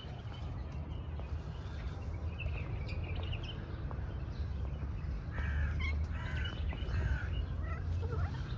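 A crow cawing: a few short calls, then a quick series of caws about halfway through, over a steady low rumble.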